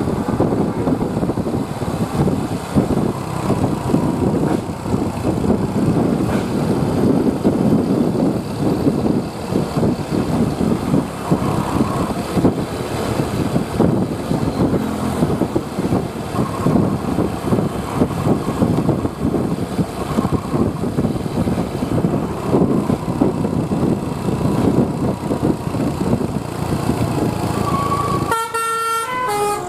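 A bus running with loud, steady engine and road noise. Near the end, its multi-note telolet horn plays a quick run of stepping notes.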